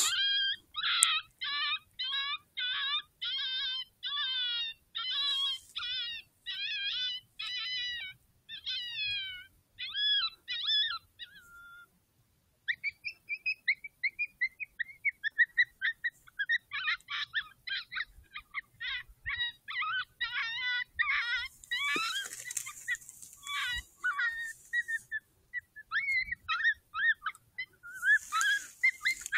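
Electronic predator caller playing a looped high-pitched yelping animal call, about two yelps a second, some sliding down in pitch; it pauses briefly about halfway, then a second run of calls starts. Two bursts of hissing rustle come near the end.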